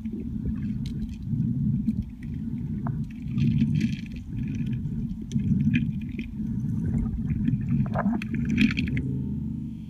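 Underwater noise picked up by a submerged camera: a low, muffled rumble of moving water with scattered clicks and crackles, which cuts off about nine seconds in.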